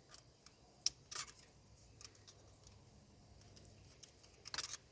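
A few faint, scattered clicks and taps, with a short cluster near the end: a tool working the hose clamp on a car's air intake hose.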